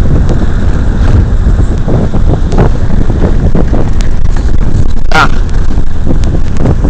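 Vehicle driving off-road over rough dirt: a heavy low rumble with wind buffeting the microphone and frequent knocks and rattles as it jolts. About five seconds in there is a brief loud, high-pitched sound.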